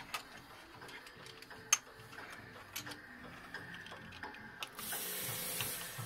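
Scattered sharp clicks and knocks, the loudest about two seconds in, then a steady hiss of about a second near the end.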